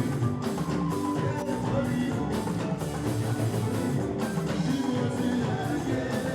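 Music with a steady drum beat, about two beats a second.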